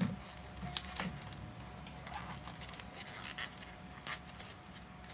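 Plastic cosmetics packaging being handled: a bottle and a small box are picked up and turned over, giving scattered light clicks, taps and rustles at irregular intervals over a faint steady hum.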